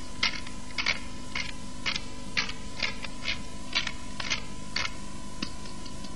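Hand pepper mill grinding black peppercorns in short twists, about two strokes a second, stopping about five seconds in.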